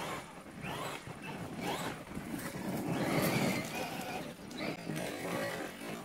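Traxxas Maxx RC monster truck's brushless electric motor whining in short rising sweeps as it is driven hard over gravel, with tyre and gravel noise; loudest about three seconds in.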